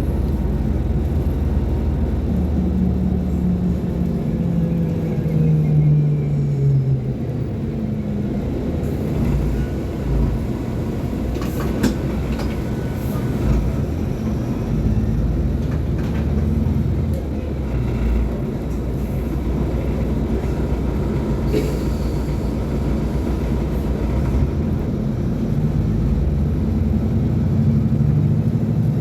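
Diesel engine of a Mercedes-Benz O500U city bus running under way, its pitch rising for a few seconds near the start and then dropping back to a steady low rumble, with a couple of sharp knocks partway through.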